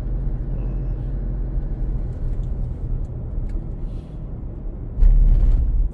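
Steady low engine and tyre rumble heard from inside a moving car's cabin. About five seconds in, a sudden louder low rumble lasts for about a second.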